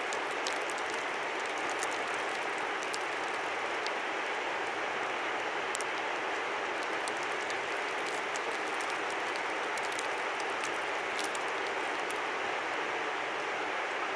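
Steady rushing of a river, even and unbroken, with many small sharp ticks scattered through it.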